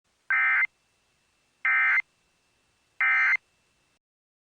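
Emergency Alert System End of Message signal: three short bursts of buzzy digital data tones, each about a third of a second, sent about a second and a half apart, marking the close of the alert.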